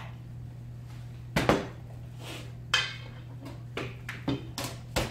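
Stainless steel mixing bowls and a spatula clattering on a kitchen counter: a sharp knock about one and a half seconds in, then several lighter knocks and scrapes.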